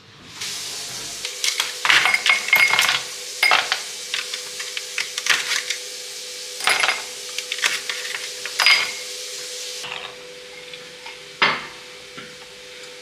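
Ice cubes being worked out of a plastic ice-cube tray and dropped into cut-crystal tumblers: a run of sharp clinks and rattles of ice on glass, with a single louder clink near the end. A faint steady hum sits underneath.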